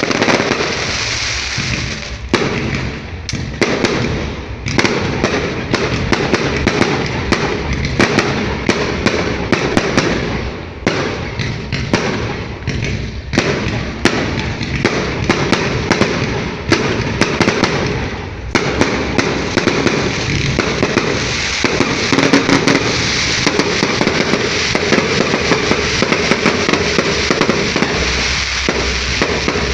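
Fireworks going off without a break: a dense, rapid string of bangs and crackles, many each second.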